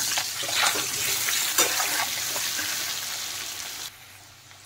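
Boiled new potatoes sizzling in hot mustard oil in a kadai, with a metal spatula scraping and turning them a few times. The sizzle stops abruptly about four seconds in.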